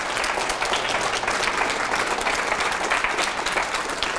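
Audience applauding at the end of a talk, a steady patter of many hands clapping.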